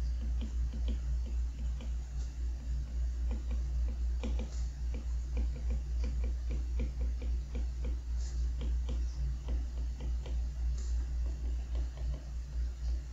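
A stylus tip tapping and clicking on an iPad's glass screen during handwriting, a quick, irregular patter of small taps over a steady low hum.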